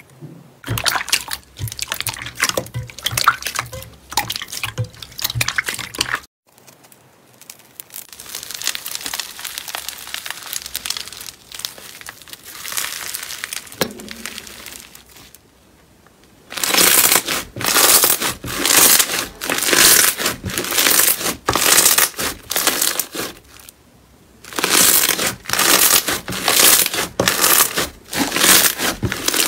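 Slime being squeezed and pressed by hand, making crackling, crinkling pops. Several clips are cut together. In the second half the presses grow louder and come about once a second.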